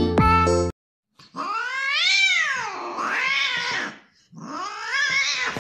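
A brief snatch of music cuts off. Then a cat gives two long drawn-out meows, each rising and then falling in pitch, the first lasting about two and a half seconds.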